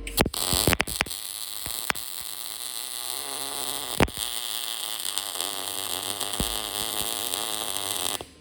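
Electric arc welding: a few crackling strikes as the arc starts, then a steady sizzling hiss for about eight seconds that cuts off suddenly when the arc is broken.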